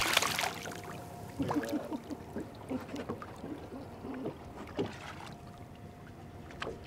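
Hooked kingfish (king mackerel) thrashing and splashing at the water's surface beside the boat, the splashing stopping about half a second in. After that come quieter water and wind, with a few faint wavering sounds and a faint steady tone.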